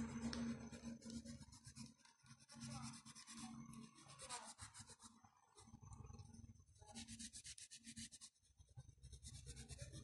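Fingers rubbing oil pastel on paper to blend the colours: faint, quick back-and-forth strokes in short runs with brief pauses.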